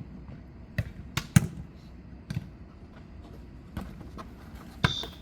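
Jokgu ball being kicked and bouncing on the court during a rally: a series of sharp thuds, the loudest about one and a half seconds in, with a brief high squeak near the end.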